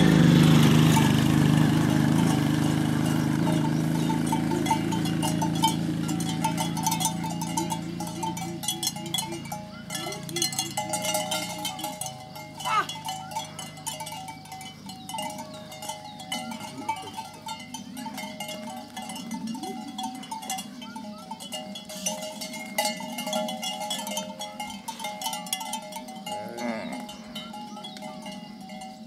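Bells on a herd of cattle clinking and clanking over and over as the animals move about. A loud, deep sound fills the first several seconds and fades out.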